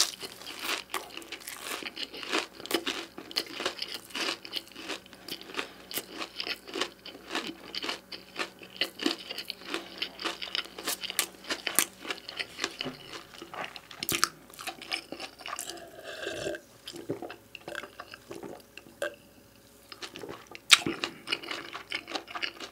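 Close-miked chewing of pizza: dense wet mouth clicks and crunching, thinning out in the last few seconds. A single sharp click near the end is the loudest sound.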